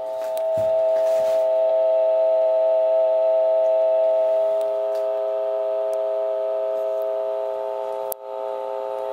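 Telephone dial tone played back through a digital answering machine's small speaker: the steady tone recorded at the end of a message after the caller hung up, with a brief break about eight seconds in.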